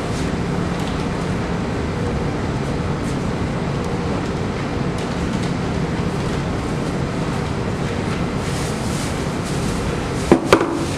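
Steady low background noise, with two sharp knocks close together near the end, each followed by a brief hollow ring, as a PVC pipe used as a rolling pin is set down on a wooden table.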